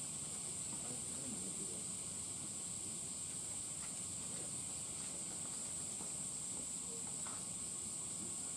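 A steady high-pitched hiss of background noise, even throughout, with faint indistinct low sounds beneath it.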